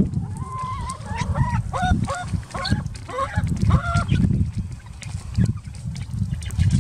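Chicken hen calling in a run of about ten short, pitched notes over the first four seconds, over a steady low rumble.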